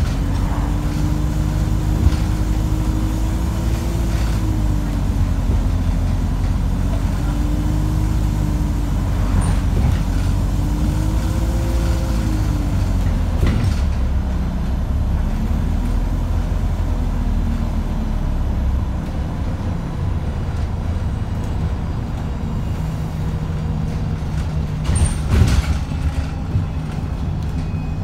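ADL Enviro350H bus engine running under way, heard from inside the saloon, its pitch rising and falling with road speed; the uploader calls it an unhealthy engine. A single knock comes about halfway through, and a short hiss of air about three seconds before the end.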